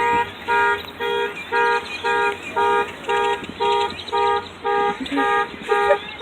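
A car alarm sounding the horn in a steady on-off pulse, about two honks a second, set off by a huge flock of birds landing on the parked cars. Many birds chirp faintly underneath.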